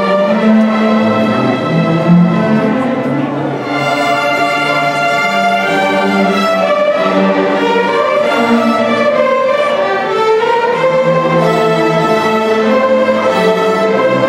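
Youth string orchestra playing, violins bowing held notes over a lower string line.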